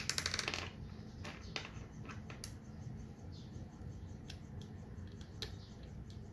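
Parts of a Skull & Co Phantom Rack being handled and fitted together: a quick rattle of tiny clicks at the start, then scattered light clicks and taps.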